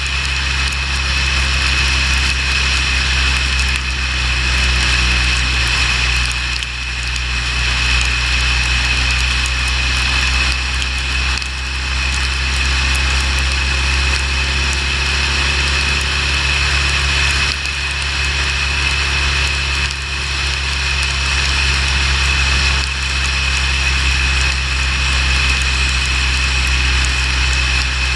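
Motorcycle engine running steadily at highway speed under a constant rush of wind and road noise.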